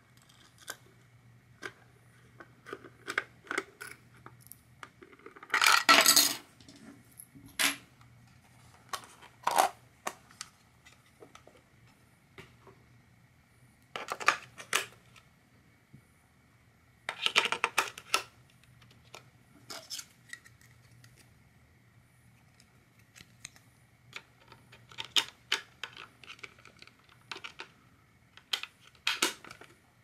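AA batteries clinking into the spring contacts of a plastic toy's battery compartment, with the plastic cover clicking and rattling as it is handled. Short scattered clicks and clatters, the loudest about six seconds in.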